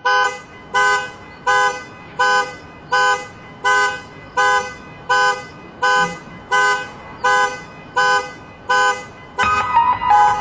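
Car alarm sounding the car's horn in short, evenly spaced honks, about three every two seconds. Near the end, piano music comes in over it.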